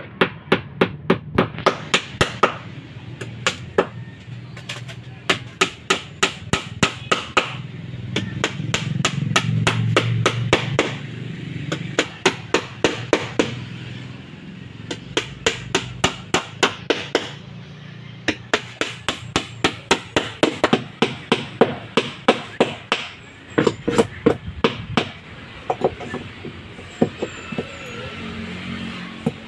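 Hammer driving nails through plywood planking into a boat's wooden frame, in runs of quick strikes, about three a second, with short pauses between runs.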